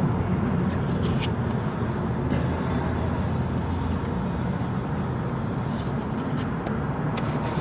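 Steady low rumble of motor-vehicle traffic, with a few faint clicks.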